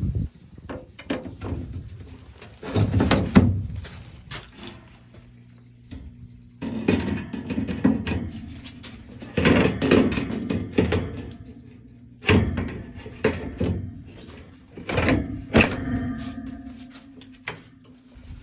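Irregular clicks, knocks and clunks of hands working on an air conditioner's parts and fittings while the capacitors are swapped, over a steady low hum.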